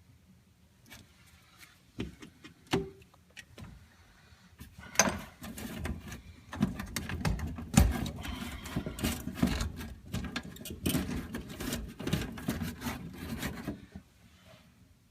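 Irregular clicks, knocks and rubbing of something being handled, loudest in the middle and stopping about a second before the end.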